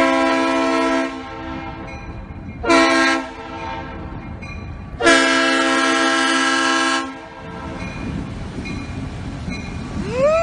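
Diesel locomotive's air horn sounding for a grade crossing: a long blast, a short one, then a long one of about two seconds, each a chord of several tones. The low rumble of the approaching train runs between and after the blasts.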